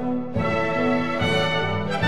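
Orchestral music with brass, playing held chords that change about every second.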